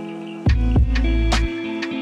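Background music with a beat: held notes, drum hits, and a deep bass that comes in about half a second in.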